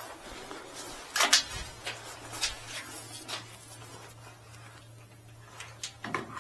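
Sharp clicks and knocks of metal parts and tools being handled while an elevator guide shoe and its liner are fitted, the loudest a little after a second in and a cluster near the end, over a faint steady low hum.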